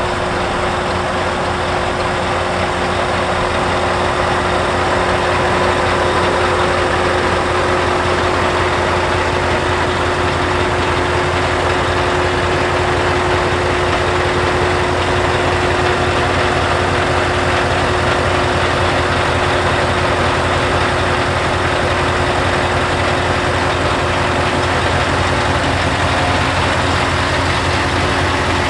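Scania R730's 16-litre V8 diesel engine idling steadily.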